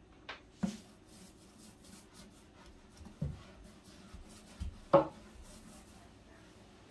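Brush rubbing paint onto a wooden kitchen cabinet. Several light knocks come through, with one sharp, loud knock about five seconds in.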